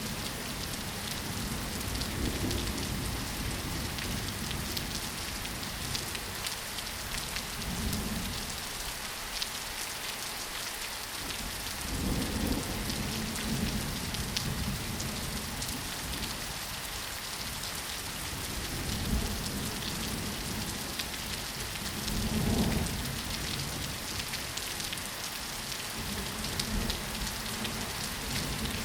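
Steady rain falling: an even hiss flecked with fine drop ticks, with brief low rumbles several times, the loudest about two-thirds of the way through.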